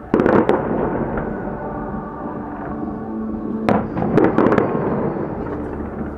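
Fireworks going off: a quick string of sharp bangs just after the start, a reverberant rumble, then another cluster of bangs about four seconds in.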